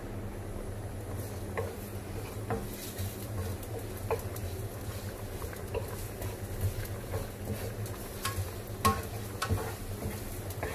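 Ginger slices frying in oil in a frying pan, stirred with a wooden spatula that taps and scrapes against the pan: scattered light taps over a steady low hum.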